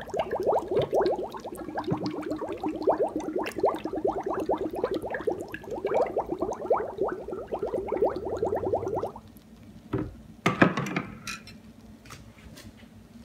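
Air gurgling out of a beer bottle held under water in a cooler of OxiClean solution as the bottle fills: a rapid run of rising glugs for about nine seconds that then stops. A few sharp clinks of a metal butter knife against the glass follow.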